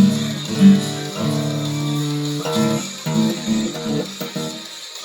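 Guitar playing a chord progression in a steady rhythm, with the low notes dropping out briefly near the end.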